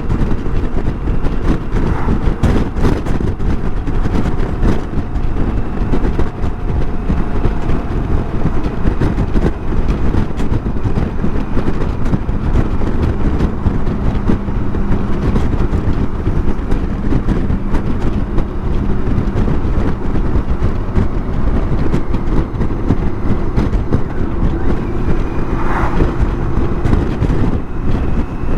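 BMW K1600 GTL motorcycle cruising at a steady speed: the inline-six engine's even hum under a constant rush of wind on the microphone.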